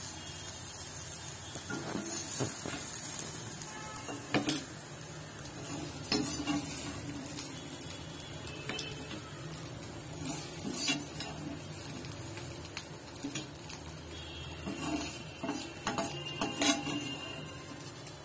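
A utensil stirring athalakkai (small bitter gourds) frying in a pan: irregular knocks and scrapes against the pan over a faint steady sizzle.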